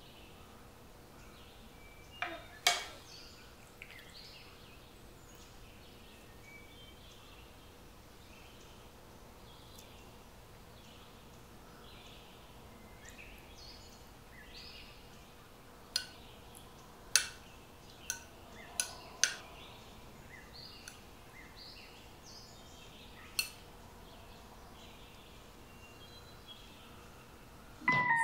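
A metal ladle and spoon clinking against a ceramic soup bowl: one sharp clink about three seconds in, a quick cluster of five or six clinks in the middle, and one more later, over a faint steady background hiss.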